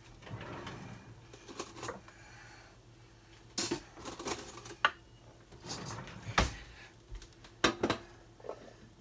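Dishes and utensils being handled on a kitchen counter: a string of clinks and knocks, with the sharpest about three and a half, six and a half and seven and a half seconds in.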